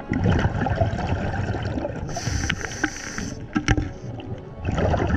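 Scuba diver breathing through a regulator underwater: a bubbling, crackling exhale, a hissing inhale through the demand valve about two seconds in, then another bubbling exhale near the end, with a few small clicks in between.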